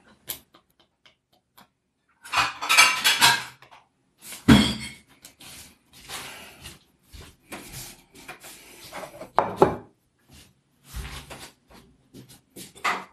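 Plates and cutlery clattering in several short bursts with quiet gaps between them, as food is served onto plates.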